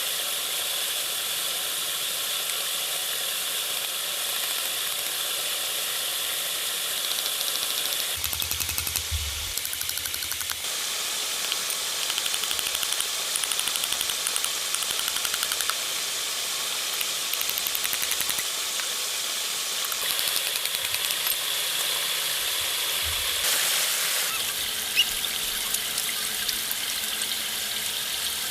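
Steady hissing noise scattered with small ticks and crackles, changing abruptly in character several times.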